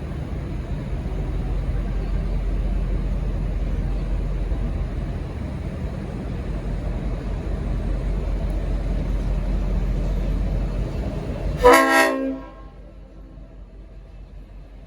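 Diesel locomotive's engine running with a steady low rumble, cut short near the end by one short blast of its Leslie RS5T five-chime air horn, a chord of several tones. After the blast it is much quieter.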